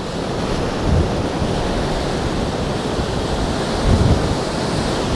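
Storm surf on Lake Superior, whipped up by a nor'easter gale, rolling in and breaking on an icy, rocky shore, with strong wind rushing over the microphone. There are two heavier low surges, one about a second in and one around four seconds in.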